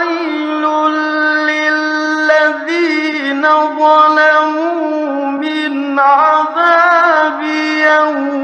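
A male Quran reciter's high voice chanting in the melodic mujawwad style. He holds long, ornamented notes that turn up and down in pitch, with short breaks between phrases.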